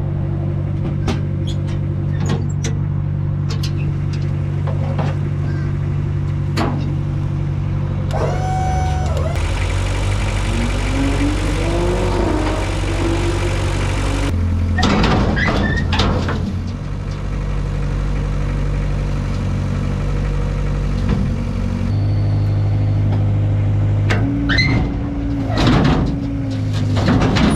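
Excavator engine running steadily while the machine works on a wooden trailer deck, its pitch shifting a few times. Scattered knocks and metal clanks come over it, with a hissing stretch about halfway through.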